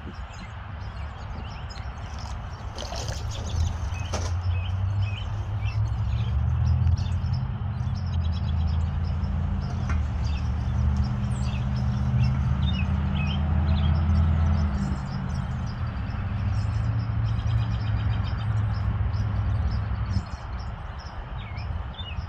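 Birds chirping over a low, steady rumble that swells in the middle and eases off near the end.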